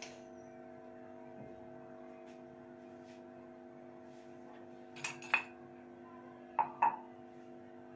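Mugs being handled and set down on a kitchen counter: two sharp clinks about five seconds in, then two knocks near seven seconds, over a steady hum.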